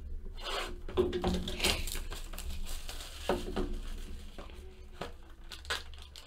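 Cellophane shrink wrap rubbing and crackling as it is stripped from a cardboard Bowman Inception baseball card box, then the box flap pulled open. The scraping and rustling comes in irregular strokes.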